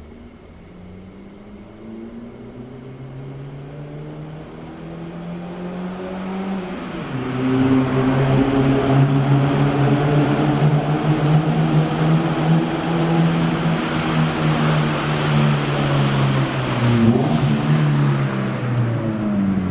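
Nissan K11 Micra's four-cylinder engine, breathing through an aftermarket Be-Cruise centre pipe and rear silencer, accelerating. The pitch climbs, then drops sharply about 7 s in as it shifts up. It then runs loud and hard, with another brief dip in pitch near the end.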